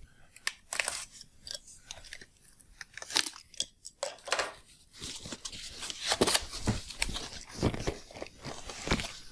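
Cardboard box being opened by hand: its flaps pulled and folded back, with irregular crackling and scraping of cardboard.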